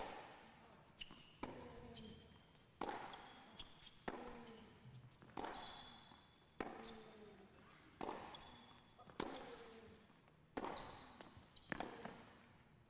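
Tennis rally on an indoor hard court: racket strikes on the ball, about one every 1.3 s, some ten in all, with brief sneaker squeaks between shots.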